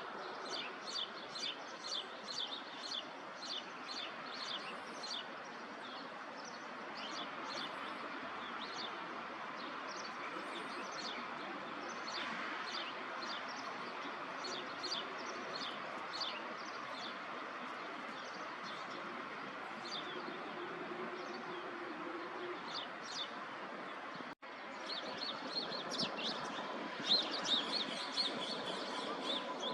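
Small songbirds chirping, many short high chirps in quick succession, over a steady hum of city park background noise. The sound cuts out for an instant about 24 seconds in, and the chirping is louder after.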